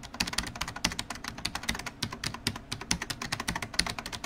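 Fast typing on a computer keyboard: a dense, uneven clatter of key clicks, many a second, that stops just after the end.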